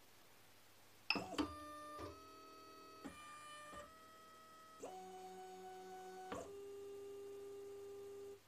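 Tevo Michelangelo 3D printer's stepper motors homing the axes: quiet steady whines that jump to a new pitch about six times as the moves change, then stop abruptly near the end.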